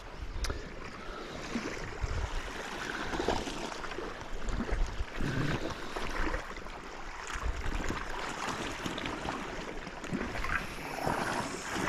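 Small sea waves washing and lapping at the water's edge, with irregular low thumps.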